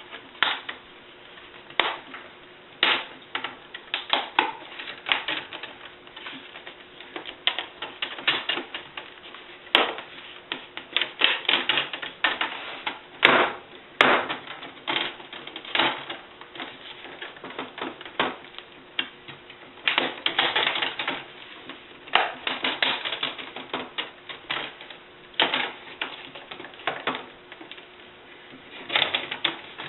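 Plastic screen bezel of a Dell Inspiron N5110 laptop being pushed and pried off the lid by hand: a long run of sharp, irregular snaps and clicks, often in quick clusters, as its retaining clips pop loose all the way around.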